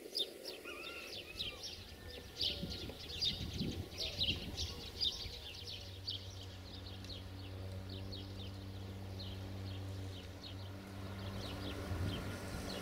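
Songbirds chirping rapidly, then about halfway through the steady low drone of a diesel locomotive engine comes in and keeps running under fainter birdsong, growing a little louder near the end.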